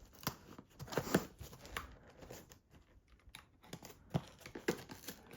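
Irregular crinkling and tapping from a shipping package being handled, with a few sharper clicks about a second in and again near the end.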